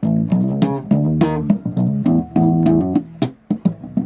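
Electric bass guitar playing a riff of short plucked notes, with several sharp, clicky attacks among them.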